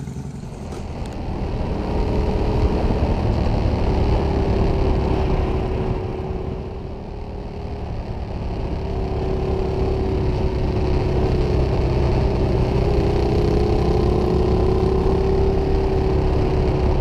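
Ducati Diavel V-twin engine and wind rush, heard from a camera mounted on the motorcycle while cruising. The sound grows louder about two seconds in, eases off midway, then picks up again and holds steady.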